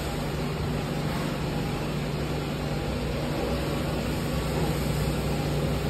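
A steady low mechanical hum under a constant hiss.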